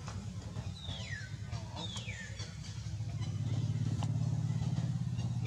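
A motor vehicle's engine running, a low pulsing drone that grows louder about halfway through. Two short whistled calls, each falling in pitch, sound in the first two seconds.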